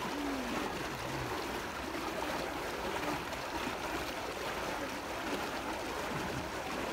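Steady rushing of water pouring into a pool from a small cascade.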